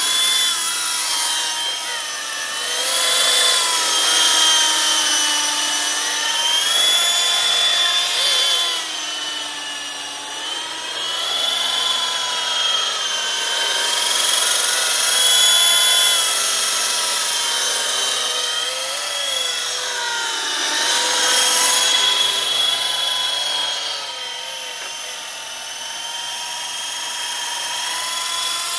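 Small battery-powered RC helicopter lifting off and flying: a steady motor and rotor whine whose pitch wavers up and down as the throttle and load change.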